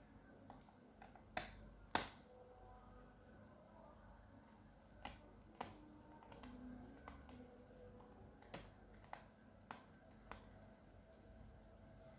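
Sharp clicks and taps of small hard parts and tools being handled while a laptop is taken apart: two louder ones about a second and a half and two seconds in, then half a dozen lighter ones spread through the rest.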